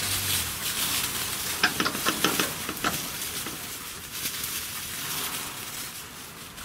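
Foxhounds running through dry fallen leaves and scrub: a crackling rustle, with a cluster of sharper snaps about two seconds in, fading as the pack moves off.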